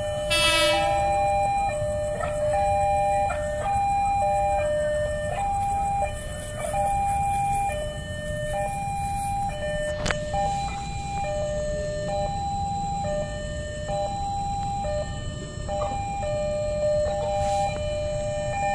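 Railway level-crossing warning alarm sounding, two electronic tones, one lower and one higher, taking turns about every second and repeating steadily over a low rumble.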